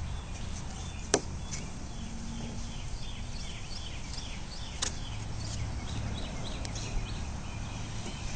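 Two sharp clicks, about a second and nearly five seconds in, as parts of a kit microscope are handled for gluing, over a steady low hum and many short, high chirps.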